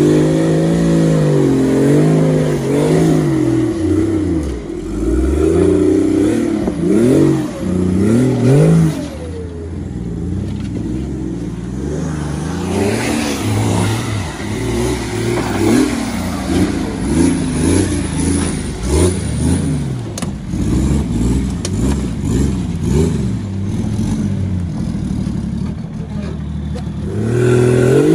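Nissan Patrol off-roader's engine revving up and down again and again as it crawls up a rutted, muddy trail, loudest over the first nine seconds or so.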